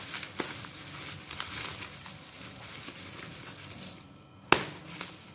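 Plastic bubble wrap crinkling and rustling as hands turn and unwrap a wrapped box, with many small crackles. A single sharp click about four and a half seconds in is the loudest sound.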